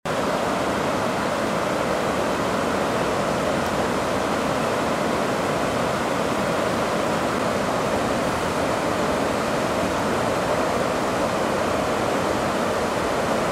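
A stream in flash flood, far over its banks, rushing fast through the trees: a steady, unbroken noise of running water.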